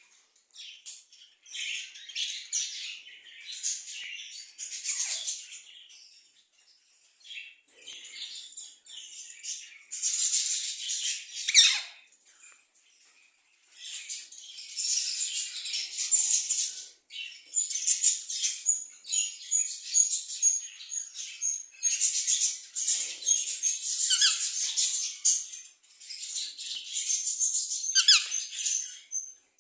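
A group of budgerigars chattering and warbling: dense, high chirps in irregular bursts, with a couple of brief lulls.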